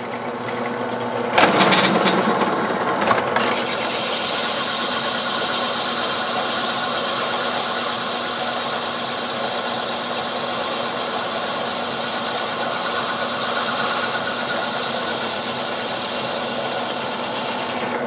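Electric power tool running steadily on steel in a metal shop, with a louder, harsher stretch between about one and three seconds in.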